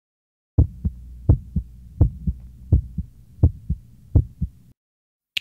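Heartbeat sound effect: six low lub-dub double thumps at about 80 beats a minute over a steady low hum, stopping suddenly near the end, followed by a short sharp click.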